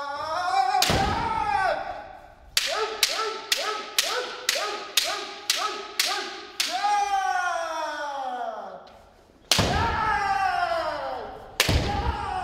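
Kendo kirikaeshi drill: bamboo shinai strike in a quick, even run of about nine left-right blows, about two a second, each with a short shouted kiai. Long kiai shouts that fall in pitch follow, and two single hard strikes land with heavy stamps on the wooden floor.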